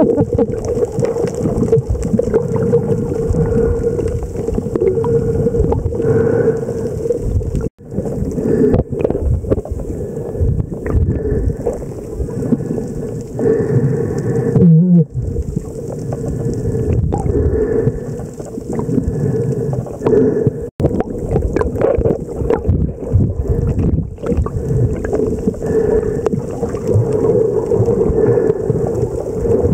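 Underwater sound picked up by a camera swimming among spinner dolphins: a steady rushing water noise with a low hum, with short, faint whistle-like tones from the dolphins. The sound cuts out abruptly twice, about 8 and 21 seconds in.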